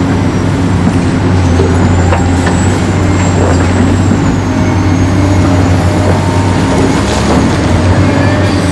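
Remote-control toy excavator and dump truck running, giving a steady truck-engine-like rumble with a thin high whine that rises and falls.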